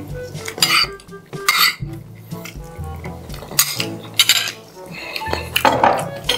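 Spoon and fork clinking and scraping on a plate during a meal, with a series of sharp clicks and knocks. A low bass line of background music plays underneath.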